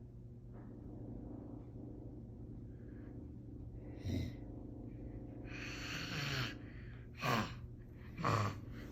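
Toddler imitating a lion: a few short, breathy, rough-voiced huffs, one longer hiss-like breath about six seconds in, and two falling grunts near the end, over a steady low hum.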